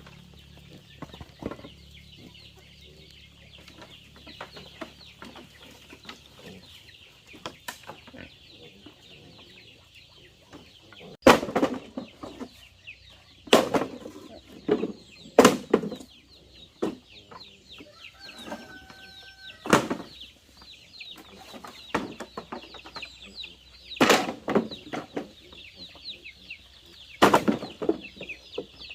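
Chickens clucking over a steady high chirping. From about a third of the way in come six loud, sudden knocks or scrapes, two to four seconds apart.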